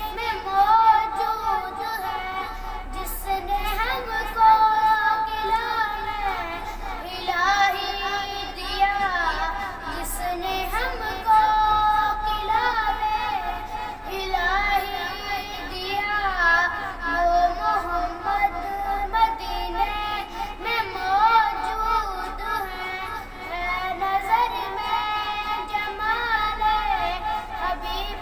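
A boy sings a naat, an Urdu devotional song in praise of the Prophet, solo in a high child's voice. He sings long, ornamented phrases with sliding turns in pitch.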